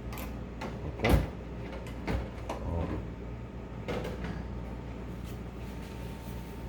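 Knocks and clicks from handling the coffee machine's door and panel, about five in all, the loudest about a second in, over a steady low hum.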